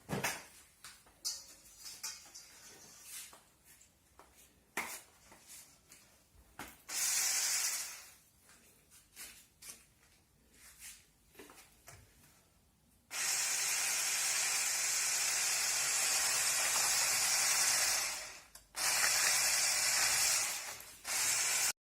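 Electric hand mixer beating eggs with sugar: a brief burst of running, then a steady whir with a low motor hum for about five seconds that stops for a moment, runs again for a few seconds and cuts off abruptly. Before the long run there are scattered knocks and clicks of the bowl and beaters being handled.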